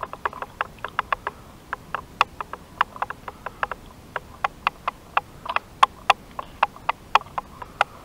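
A spoon clinking and scraping against a camping pot of beans, with rapid, irregular clicks of about five a second.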